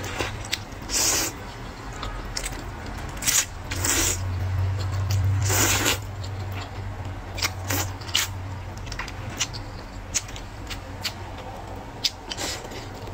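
Close-miked slurping of rice noodles, four noisy pulls in the first six seconds with the longest near the middle, then the wet clicks and smacks of chewing.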